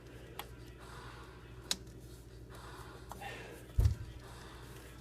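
Hands working spark plug wires onto a distributor cap: a couple of sharp clicks, a rustle and one low thump nearly four seconds in, over a steady low hum.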